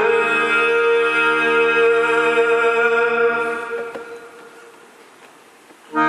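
Live instrumental music: a held chord sustains, then dies away from about three and a half seconds in. A new chord comes in loudly right at the end.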